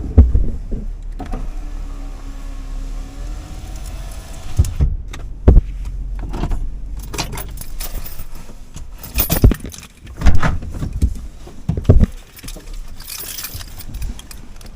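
Keys jangling and knocking against each other while someone walks, with scattered thumps. A low steady hum runs for a couple of seconds near the start.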